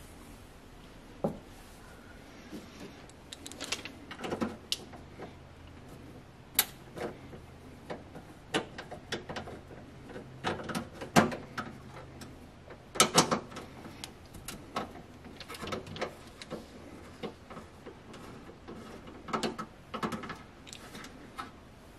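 Irregular clicks, taps and light knocks of tools and metal parts being handled, sometimes in quick clusters, with a faint low hum in the middle stretch.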